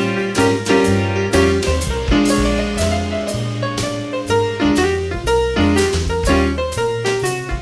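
Live instrumental jazz: piano chords over a walking bass line, with drums striking on a steady beat.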